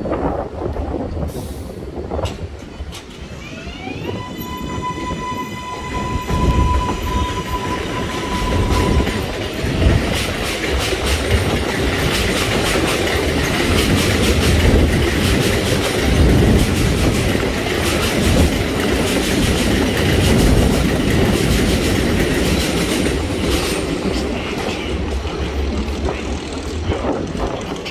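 New York City Subway train of R188 cars pulling out: the traction motors give a rising whine that levels off into a steady tone for several seconds. After that, loud continuous rumble and clatter of subway trains running on the elevated steel track.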